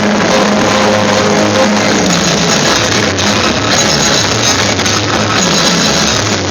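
Loud rock-style music with guitar and drums.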